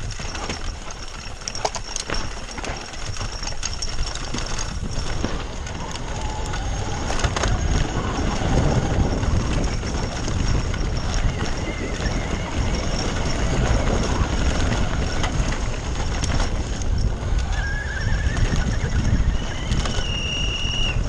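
Downhill e-bike run heard from an on-board camera: wind rushing over the microphone, tyres on dirt and gravel, and the bike's frame and chain rattling and knocking over rough ground, louder through the middle. A few short high squeals sound near the end.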